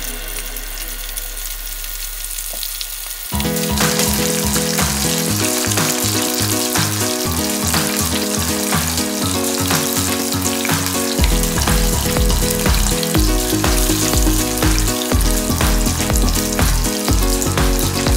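Battered shrimp deep-frying in hot oil in a pot, sizzling steadily: the second, short crisping fry. Background music with a beat comes in about three seconds in and plays over the sizzle.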